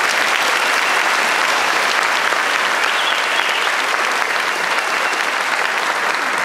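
A large audience applauding steadily, many people clapping at once.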